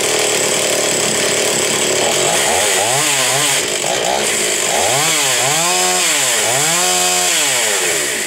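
Stihl 024 AVS two-stroke chainsaw running, then revved up and down several times in rising and falling sweeps of pitch, and shut off right at the end. The saw seems a little low on power, probably from worn piston rings.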